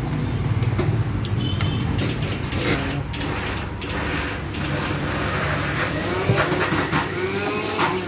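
A wire whisk scraping and clicking against a plastic bowl as it stirs a thick, wet spice marinade paste, in a run of quick irregular strokes over a low background hum.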